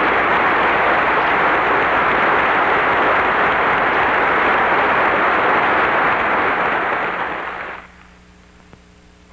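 Lecture-hall audience applauding, steady and loud, then dying away quickly near the end.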